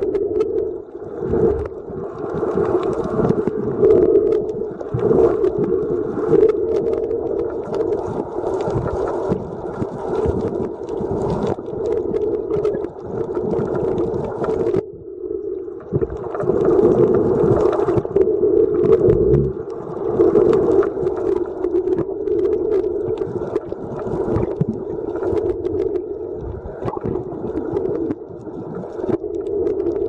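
Underwater sound picked up by a camera below the surface: a steady muffled drone with scattered crackling clicks, dipping briefly about halfway through.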